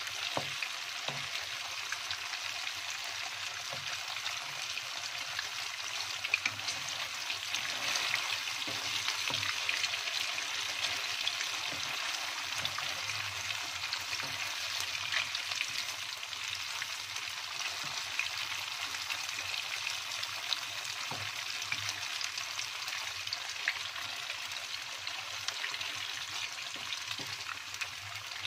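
Tofu cubes frying in hot oil in a non-stick pan: a steady crackling sizzle with many small pops, with a few soft knocks as a wooden spatula moves the pieces. The tofu is only being fried half-done.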